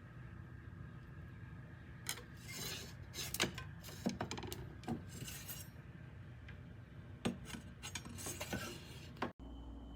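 Scattered clicks, taps and scraping of small hard objects being handled, over a steady low hum. The sound drops out abruptly for a moment near the end.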